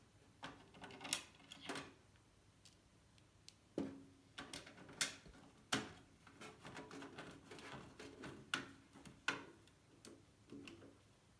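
Irregular clicks, taps and short scrapes of computer parts being handled and fitted into a PC case, about a dozen sharp knocks spread unevenly.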